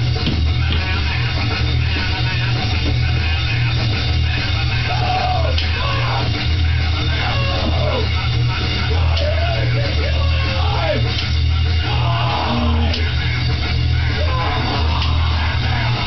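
Loud rock music with drums and guitar, played steadily throughout.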